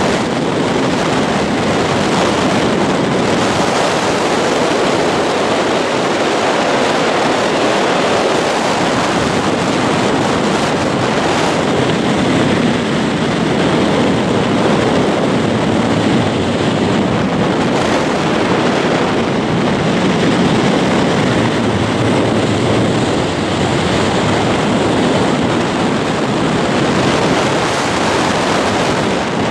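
Steady rush of air over the microphone of a camera flying under a parachute canopy: loud, even wind noise with no breaks.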